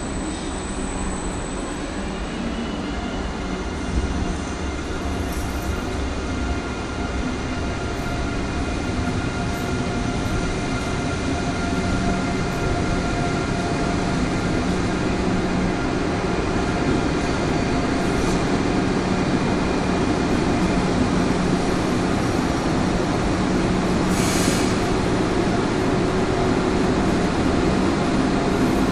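Train running through a station: a steady rumble with several whining tones, slowly growing louder. A short high hiss comes near the end.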